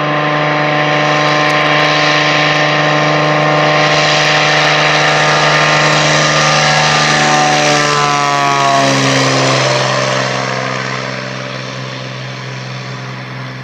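Single-engine floatplane's propeller and engine running at full power on its takeoff run across the water. The pitch drops about eight seconds in as it passes, and the sound then fades as it climbs away.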